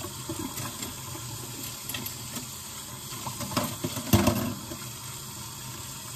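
Kitchen tap running into a sink during hand dishwashing, with dishes clinking and knocking against each other; the loudest knock comes a little past four seconds in.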